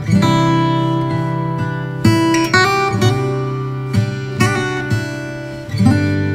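Background music on acoustic guitar, chords struck and left to ring, a new chord every second or two.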